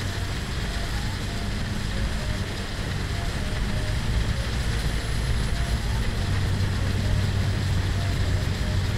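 Long-tail boat engine running steadily as the boat cruises along a canal, with a constant low rumble.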